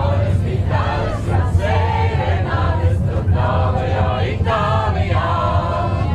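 A group of people singing together in chorus, over a steady low rumble.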